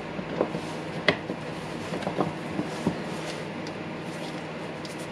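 Plastic housing halves of a Makita impact driver being handled and pressed together by hand: a handful of light knocks and clicks in the first three seconds, the sharpest about a second in, over a steady background hum.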